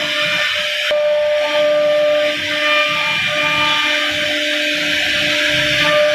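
CNC router spindle running with a steady high whine while its router bit carves grooves into a wooden panel, with a continuous hiss of cutting. There is a brief break in the sound about a second in.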